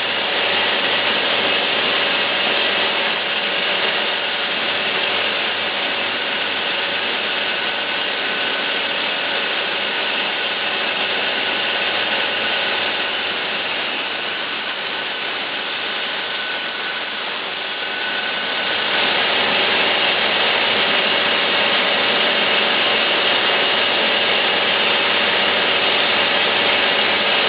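Tannewitz vertical bandsaw friction-cutting steel pipe: the high-speed band running through the metal with a steady, dense grinding noise. It softens a little past the middle, then grows louder again about two-thirds of the way through.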